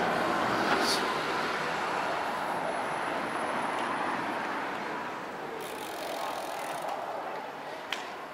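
Road traffic on a city street, an even rush of vehicles passing that is louder for the first half and then eases off.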